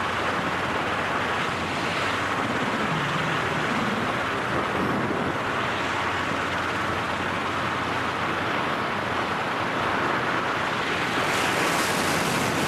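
Steady rushing noise of wind streaming past the microphone in freefall.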